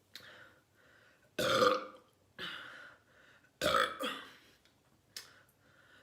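A girl burping up soda gas after drinking two 12 oz cans of soda: a string of separate burps, the two loudest about a second and a half and three and a half seconds in, with smaller ones between.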